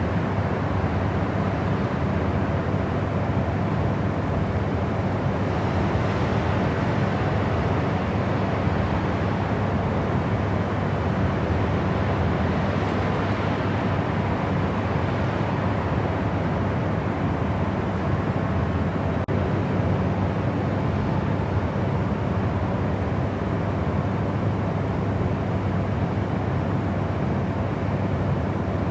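Steady white-noise sleep track: an even, unbroken rushing noise with most of its weight in the low range, unchanging throughout.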